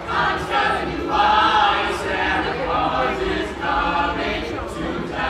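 A small mixed choir of carolers singing a holiday song together.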